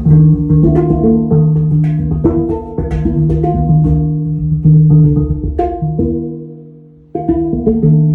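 Intro music with plucked guitar, bass and percussion. It fades away about six seconds in and starts up again abruptly about a second later.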